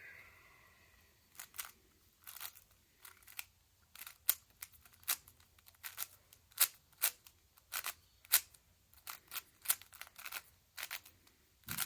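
A plastic 5x5 Rubik's cube being turned in quick moves: a string of sharp clicks, about two or three a second, starting about a second and a half in, as the edge-parity algorithm is run.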